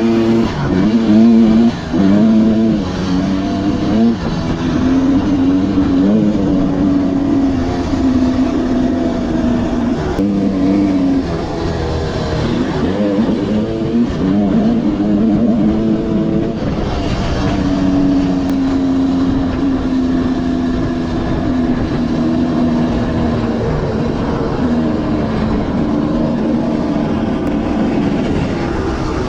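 Dirt bike engines revving up and down as they are ridden, the pitch rising and falling again and again with shifts and throttle changes.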